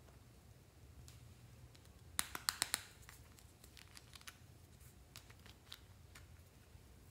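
Small plastic lids and caps of slime-topping containers clicking as they are handled: a quick run of about six sharp clicks a little over two seconds in, then a few faint scattered taps.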